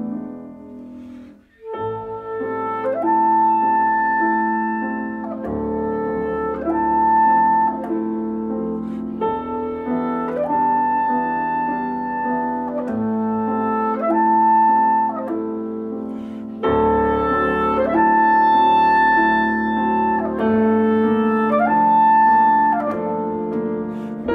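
Clarinet and grand piano playing classical music together. After a brief pause about a second and a half in, the clarinet plays long held, slurred notes over piano chords.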